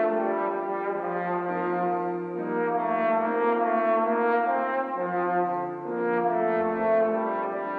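Trombone playing a slow melody of long held notes, with grand piano accompaniment.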